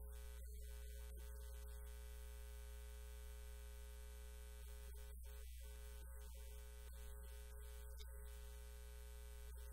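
Steady low electrical hum with a ladder of fainter steady tones above it, unchanging throughout.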